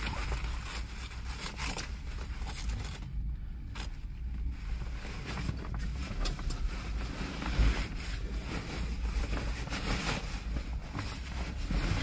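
Fabric seat cover rustling and scraping as it is pulled and tugged over a truck seat and its straps are worked, with a brief knock a little past halfway, over a steady low rumble.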